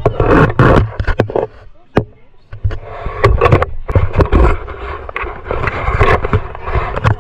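Close, loud crinkling and rustling of plastic snack packets, with scattered knocks and clatters as items are handled. There is a short lull about two seconds in.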